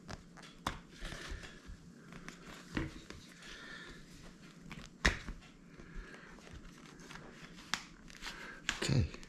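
Scattered light clicks and taps with faint crinkling: hands and repair tools handling an iPad Pro 12.9 whose glued screen has just been pulled loose. The sharpest click comes about halfway through.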